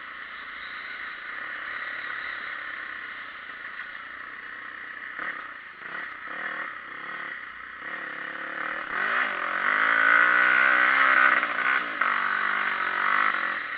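Dirt bike engine running while riding, under wind and ride noise on the bike-mounted camera. About eight seconds in, the engine gets louder and its note rises and falls with the throttle.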